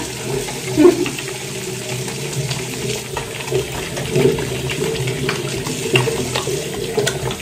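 Tap water running into a bathroom sink while hands rub and lather wet bars of soap, with small wet clicks from the rubbing; the bars are being worn down by washing.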